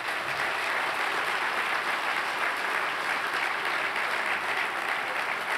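A large audience applauding, a dense steady clapping.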